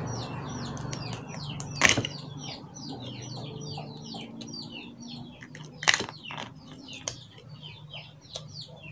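Small birds chirping rapidly, a dense stream of short high falling chirps, with two sharp cracks about two and six seconds in as a cooked crab's shell is broken apart by hand.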